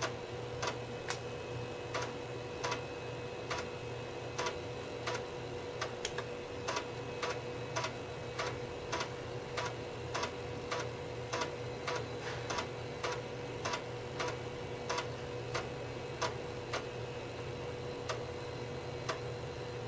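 Floppy disk drive of a 386 PC clicking repeatedly, about two to three clicks a second and slightly uneven, as it reads the MS-DOS boot diskette. A steady hum from the computer runs underneath.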